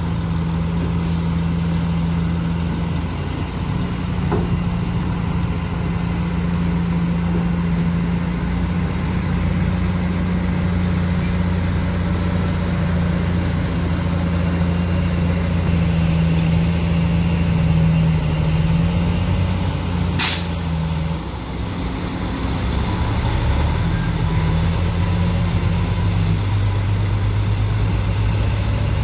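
A heavy dump truck's diesel engine runs steadily under load while the hydraulic hoist raises the loaded tipper bed to dump soil. There is one short sharp hiss about twenty seconds in, and a little after that the engine note dips and settles at a different pitch.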